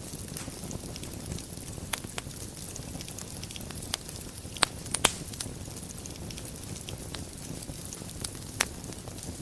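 Wood fire burning in a fireplace: a steady low rumble of flames with sharp crackles and pops scattered irregularly, the loudest a pair about halfway through.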